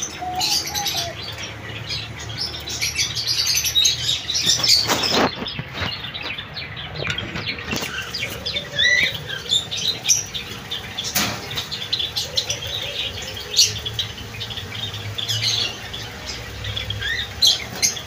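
Diamond doves in a wire cage, their wings flapping in a short flurry about five seconds in, with scattered high chirps of small birds throughout.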